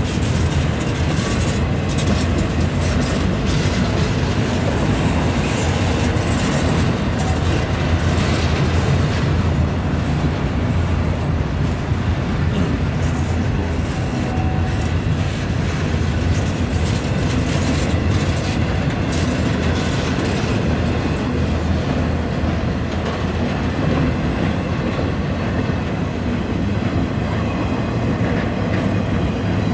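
Empty double-stack intermodal well cars of a freight train rolling steadily past: a continuous rumble of steel wheels on rail with irregular clickety-clack from the wheels over the rail joints.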